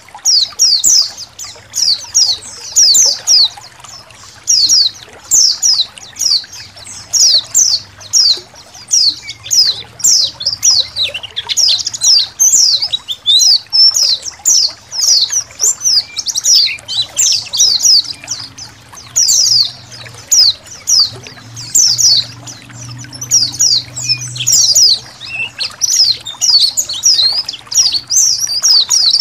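A flock of white-eyes (pleci) chirping without pause in quick, high, twittering phrases, over gently trickling water.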